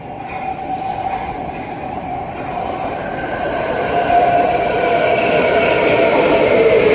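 Metrowagonmash 81-series metro train approaching through the tunnel into the station, growing steadily louder as a rumble with a whine of several tones. Near the end the main whine falls in pitch.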